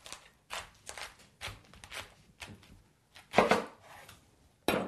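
Knife cutting through a head of green cabbage to halve it: a run of crisp crunching strokes about twice a second, with a louder crunch about three and a half seconds in and another near the end.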